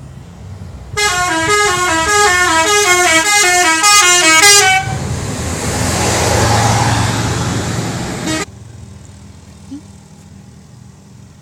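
A tour bus's 'telolet' musical horn playing its quick, jumping multi-note tune for about four seconds. A loud rushing hiss follows for about three and a half seconds and cuts off suddenly.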